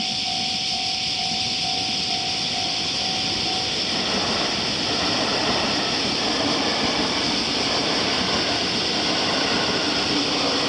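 Railway level-crossing warning bell ringing in quick repeated strokes, about three a second, until a passing JR Tokaido Main Line train drowns it out about four seconds in with a steady rushing rumble.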